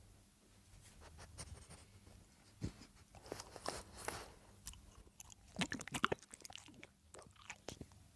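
French bulldog eating, chewing its food with irregular runs of sharp crunching clicks and short pauses between mouthfuls.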